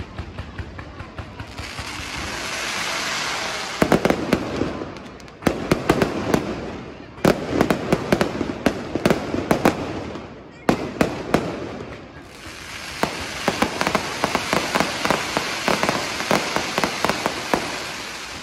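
Aerial fireworks show: a swelling crackling hiss, then a rapid run of sharp bangs and crackles about four seconds in. After a brief lull about ten and a half seconds in, another long stretch of dense crackling follows.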